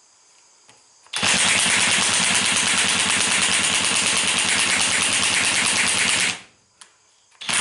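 DeWalt cordless high-torque impact wrench, set to its lowest setting, hammering rapidly against a badly stuck muzzleloader breech plug. It starts about a second in and runs for about five seconds, stops briefly, then starts hammering again near the end.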